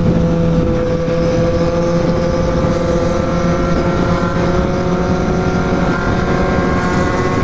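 Kawasaki Z750's inline-four engine under way at steady cruising speed, its note rising slowly as it gains speed, over steady wind and road noise.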